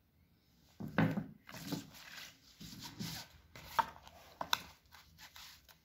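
Handling noise of a smartphone and its cardboard box on a table: a run of short rubbing and scraping sounds with two sharp clicks near the end.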